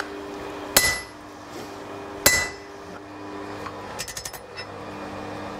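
Two heavy hammer blows on a handled top tool (slot punch) driven into red-hot steel on an anvil, about a second and a half apart, each with a short metallic ring: the last strikes cutting the shoulder slot in a sword's crossguard. About four seconds in comes a quick run of light metallic clinks, over a faint steady hum.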